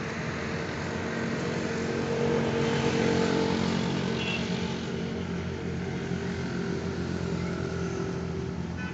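Tractor's diesel engine running steadily, getting a little louder for a couple of seconds about two seconds in.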